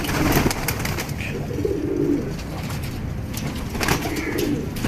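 Pigeons cooing several times, over a patter of sharp clicks from birds pecking at scattered grain.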